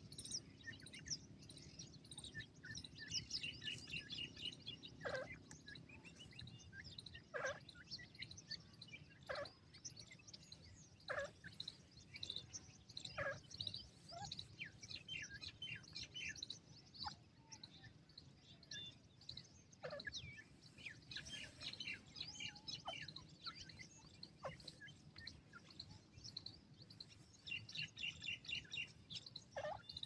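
Grey francolins chirping as they forage: many short high chirps, a few quick trills of repeated notes, and now and then a brief falling call.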